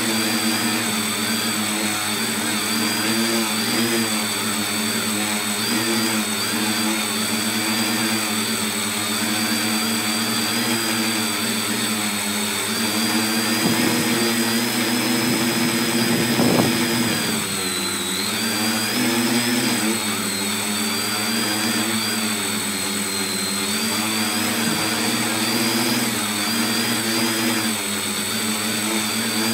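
A tricopter's three motors and propellers whine in flight, heard close up from the phone mounted on the craft. The pitch wavers up and down throughout, with a brief louder rush about halfway through.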